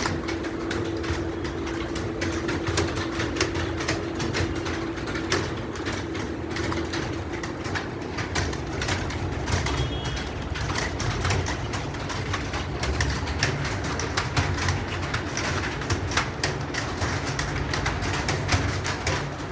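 Computer keyboard being typed on quickly: a fast, continuous stream of key clicks over a low steady hum.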